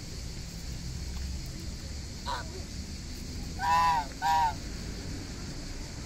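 Domestic goose honking: a short call about two seconds in, then two loud honks in quick succession around the four-second mark.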